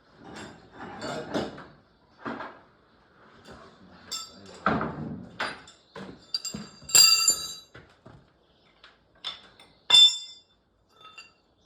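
Hand tools knocking and scraping on steel tractor parts, irregular clinks and clanks, with two sharp strikes of metal on metal that ring briefly in the second half.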